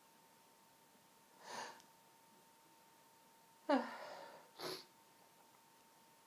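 A woman sniffling and breathing between sneezes in a sneezing fit: a soft sniff about a second and a half in, a sharper breath with a falling voice near four seconds that tails off, then another short sniff.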